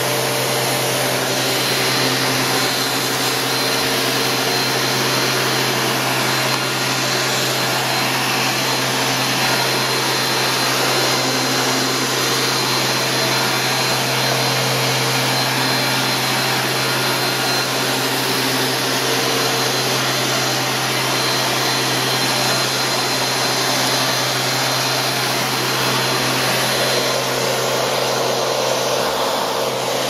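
Panasonic MC-CG885 canister vacuum cleaner running steadily, its floor nozzle pushed over carpet. The motor holds an even whir with a faint constant high whine.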